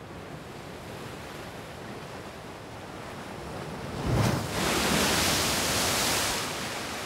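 A steady rushing noise that swells into a louder surge about four seconds in and eases off after about six and a half seconds.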